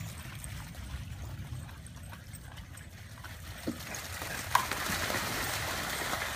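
Several dogs running and splashing through shallow floodwater, the splashing building up about four seconds in, with one short sharp sound just after.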